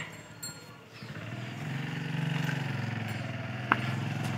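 An engine running steadily, building up about a second in and then holding an even note. A single sharp click comes near the end.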